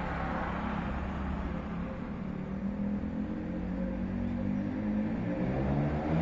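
Street traffic: cars passing with a steady hum of road and engine noise, one vehicle's engine getting louder near the end.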